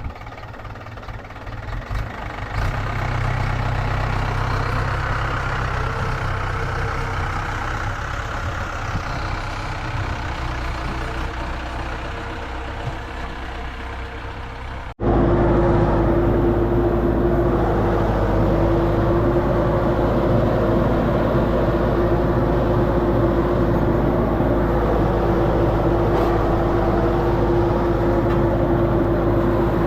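Diesel engine of a vibratory road roller running steadily. About halfway through it turns abruptly louder, with a strong steady hum.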